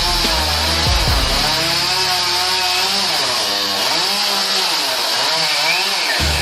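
Chainsaw running under load, its engine pitch rising and falling repeatedly as it revs and bogs through a cut.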